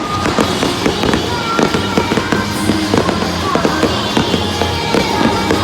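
Fireworks going off in a rapid, dense run of cracks and pops, with music playing over them.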